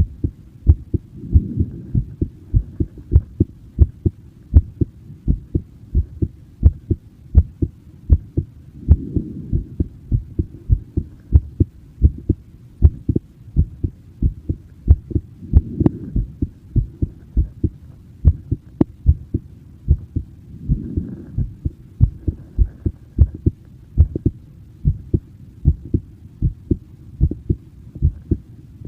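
A person's heartbeat: low thumps repeating in a steady rhythm, with a faint swell of hiss every several seconds.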